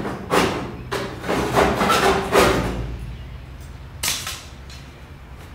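Rusted sheet metal being broken out of a 1968 Chevy C-10 cowl: a run of short, harsh metal rattles and scrapes, loudest around two seconds in, then a single sharp knock about four seconds in.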